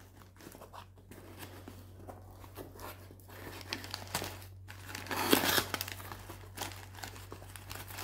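Cardboard box flaps being folded open and crumpled packing paper rustling and crinkling under the hands, in short irregular bursts, loudest about five seconds in. A faint steady low hum sits underneath.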